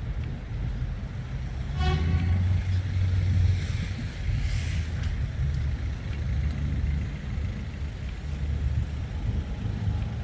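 Street traffic: motor vehicles passing with a low engine rumble that swells from about two to four seconds in, with a brief tone about two seconds in.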